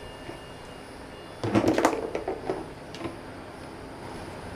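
Short pieces of PVC pipe being handled on a workbench: a quick run of hollow knocks and clatter about a second and a half in, a few lighter clicks after it, then quiet.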